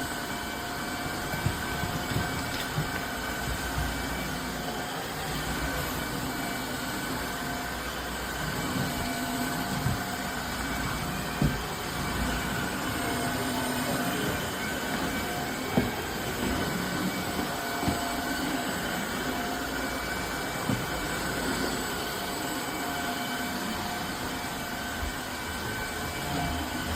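Tineco Floor ONE S5 cordless wet-dry vacuum-mop running steadily over a hard floor, a motor whine over a constant rushing noise, with a few brief knocks.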